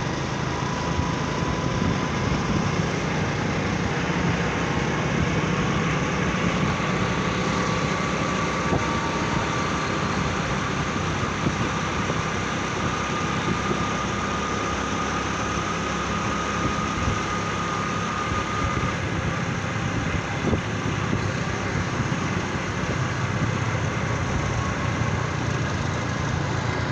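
Motorcycle engine running steadily under way, with road noise, heard from on the moving bike.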